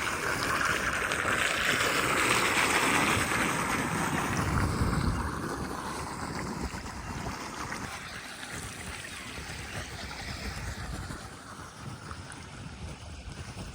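Steady rush of floodwater, louder over the first few seconds and then settling lower, with wind buffeting the microphone.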